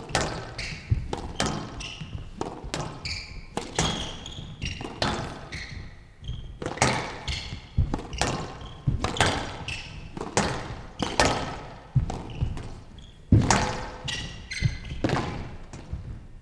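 Squash rally on a glass court: the ball struck by rackets and hitting the walls in a steady exchange of sharp, echoing hits, about two a second.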